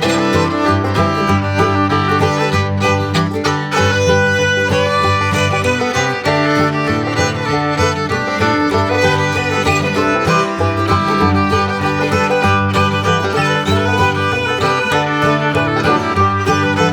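Upbeat background music led by fiddle over a steady bass line.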